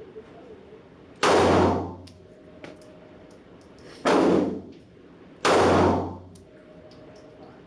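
Three 9 mm shots from an FN FNS-9 pistol: one about a second in, then two more close together near three-quarters through. Faint small metallic clicks come between the shots.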